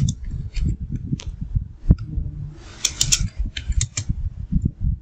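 Typing on a computer keyboard: slow, irregular keystrokes over a steady low rumble.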